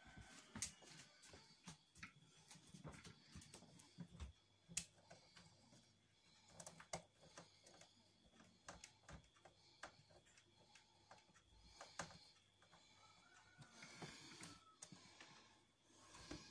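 Faint, irregular clicks and taps of a hand tool and plastic fittings on a plastic window sash, as a window-opening limiter is being fitted.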